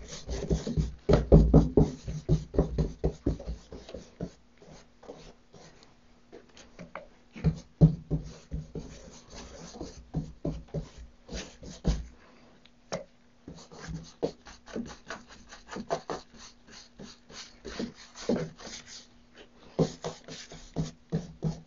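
Paintbrush swept back and forth across a wooden cabinet panel, brushing out wet paint to get rid of brush strokes: runs of quick rubbing strokes with a couple of short pauses.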